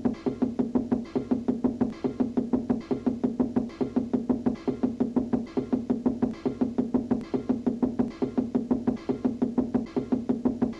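Cartoon knocking sound effect: fast, evenly spaced knocks on a wall, about five or six a second, with a musical, pitched ring to each stroke.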